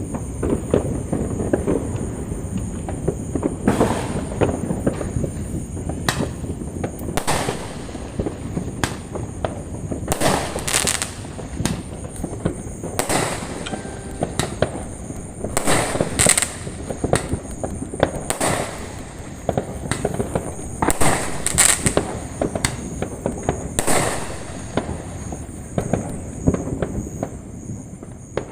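Fireworks going off without a break: a dense, continuous crackle with many sharp, loud bangs every second or two.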